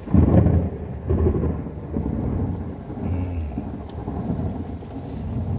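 A loud thunderclap breaks suddenly and rolls on as a low, uneven rumble, with rain falling.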